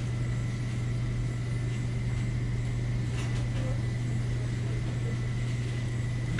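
A steady low machine hum with a thin, faint high-pitched whine above it, unchanging throughout, with a couple of faint ticks about three seconds in.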